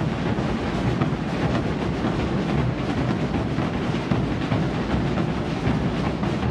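Many large Portuguese bombo bass drums beaten together, a dense unbroken rumble of strikes with no pauses.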